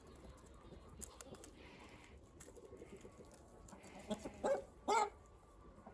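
Chickens calling: a few short clucks about four seconds in, then a single louder call just after.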